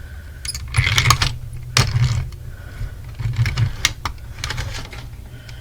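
Plastic alarm clock being handled and worked at, giving irregular clicks and rattles, over a steady low hum.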